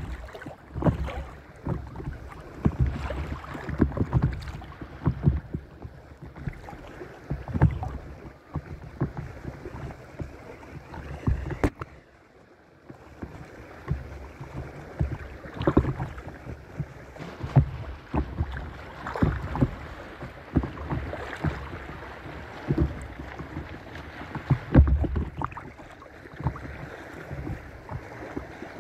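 Paddle strokes splashing and small waves lapping against an inflatable paddle board, with gusts of wind rumbling on the microphone and a brief lull about twelve seconds in.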